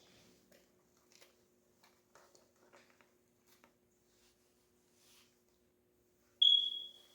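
Faint rustling and light clicks over a faint steady hum. About six seconds in, a digital blood pressure monitor gives a single short high electronic beep, the loudest sound, as it is switched on and readied on the arm.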